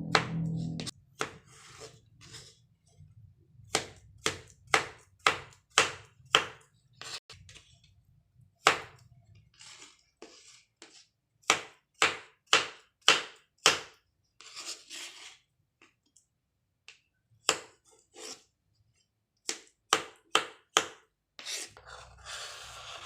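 Knife chopping fruit on a cutting board: runs of sharp knocks, about two a second, broken by short pauses.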